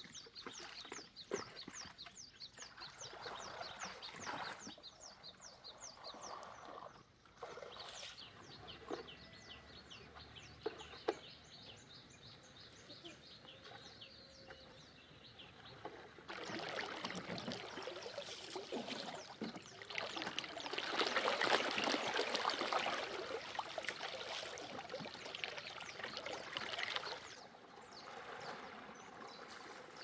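Birds chirping in quick, repeated high calls. About halfway through, a louder swishing and splashing of river water sets in as a bamboo raft is pushed along with a pole, and it fades a few seconds before the end.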